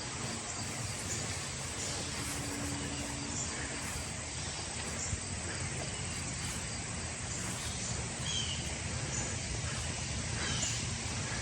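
Steady outdoor background noise, an even hiss, with a few faint, short, high bird chirps now and then.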